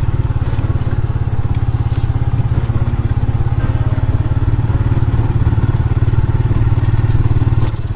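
Motorcycle engine running steadily on a rough dirt footpath, with scattered sharp clicks and rattles.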